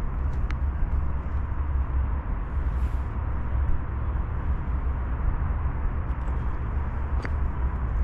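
Wind buffeting the microphone in a steady low rumble, with a couple of faint clicks.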